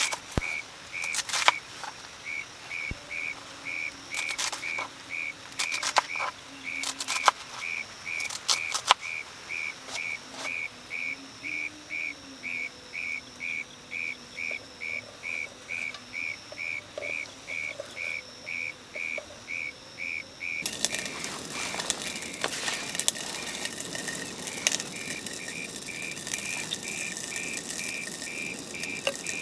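Steady rhythmic chirping, about two high chirps a second, with scattered sharp clicks. About two-thirds of the way through, a loud hiss comes in underneath and continues.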